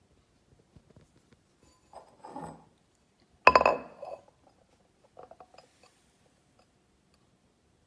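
Ceramic soup bowls being handled and knocked together. A soft scrape comes first, then one loud ringing clink about three and a half seconds in, and a few lighter clinks after it.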